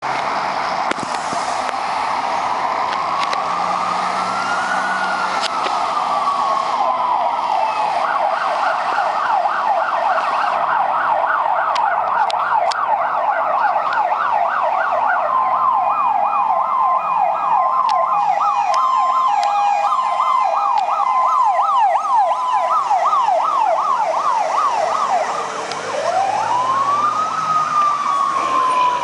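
Fire engine sirens on an emergency run: a slow wail rising and falling, switching about eight seconds in to a fast yelp, joined midway by a second siren's alternating two-tone, then a new wail rising near the end.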